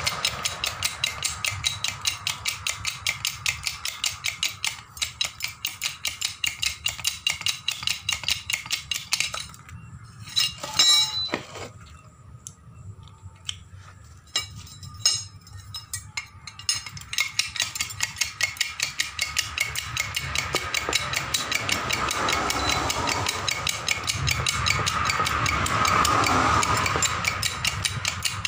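Hydraulic bottle jack being hand-pumped with its lever, a fast, even clicking of pump strokes as the ram rises. The pumping stops for several seconds midway, with a few separate metal knocks, then carries on.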